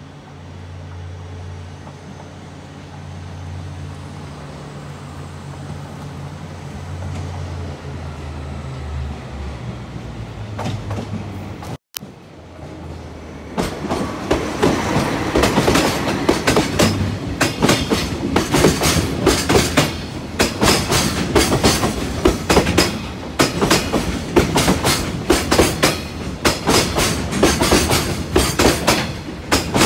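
KD60 diesel locomotive of a freight train approaching, its engine a low drone that grows louder. About twelve seconds in the sound cuts out for an instant, then the passing container wagons set up a loud, rapid clatter of wheels over the rail joints.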